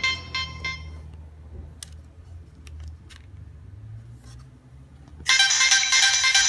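Nokia 3220 mobile phone ringtones: one electronic melody dies away in the first second, then after a quiet gap with a low hum and a few faint clicks, the next ringtone starts abruptly about five seconds in.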